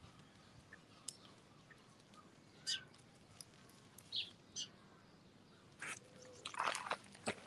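Wild birds chirping outdoors: scattered short, high calls, with a denser, scratchier run of sound from about six to seven seconds in.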